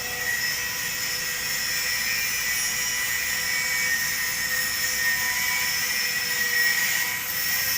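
Electric arc welding on a metal pipe: a steady hiss with a steady high whine running under it.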